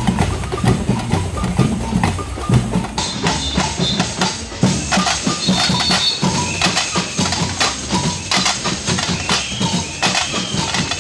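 Carnival percussion band drumming a busy, steady rhythm.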